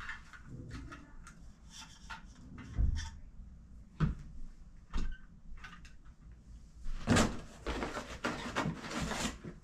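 Household items being handled and put down: a few separate knocks about a second apart, then about two seconds of rustling starting around seven seconds in.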